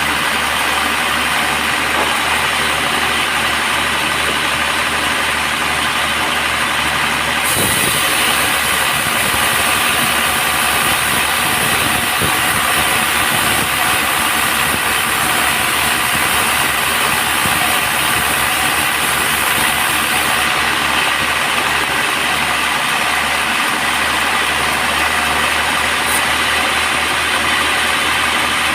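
Band sawmill running steadily. About seven seconds in, a harsher high hiss comes in on top and lasts until about twenty seconds in.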